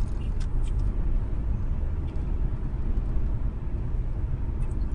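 A car driving on the road, heard from inside the cabin through a dash cam: a steady low rumble of tyres and engine, with a few faint ticks in the first second.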